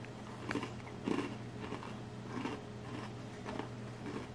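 Person chewing an animal cracker coated in funfetti cake dip with the mouth closed: soft, irregular crunches about once or twice a second.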